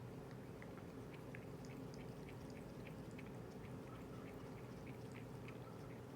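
Cat lapping water with its tongue: faint, quick wet clicks, about four a second, over a steady low hum.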